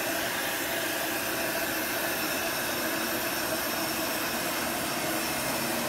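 Industrial heat gun running steadily, a constant rush of blown air over the whir of its fan motor, as it fuses a natural beeswax encaustic layer.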